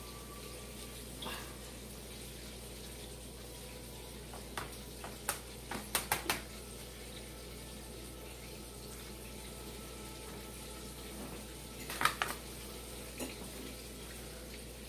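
A utensil scraping and tapping against a disposable aluminium foil pan while stirring wet chicken dressing. Scattered clicks, with a quick cluster about six seconds in and another about twelve seconds in.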